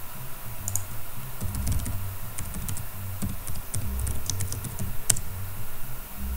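Typing on a computer keyboard: irregular key clicks, some in quick runs, with one sharper click about five seconds in.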